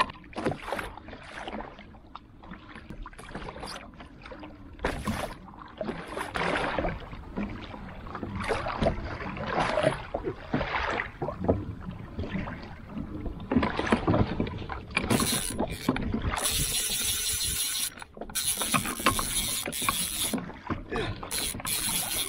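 Water splashing irregularly against a kayak hull. About fifteen seconds in, a fishing reel's drag starts buzzing steadily as a hooked fish pulls out line. It breaks off briefly and runs on to the end.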